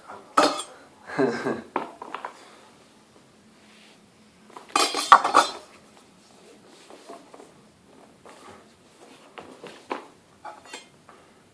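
Knocks, scrapes and clatter of a MacBook Pro box being handled and opened on a hard surface: a few sharp clicks in the first two seconds, a louder clatter about five seconds in, then lighter taps.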